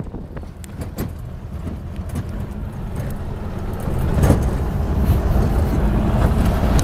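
Pickup truck driving on a rough dirt road, heard from its open cargo bed: a steady low rumble of the moving truck, mixed with wind on the microphone, getting louder about four seconds in.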